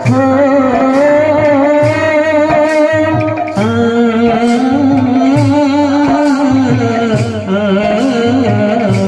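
Kirtan devotional music: a held, wavering sung melody over low beats on a double-headed barrel drum, with a regular beat of sharp strokes.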